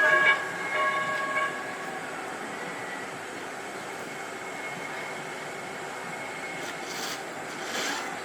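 Light rail train's horn sounding two short blasts in the first second and a half, then steady train noise.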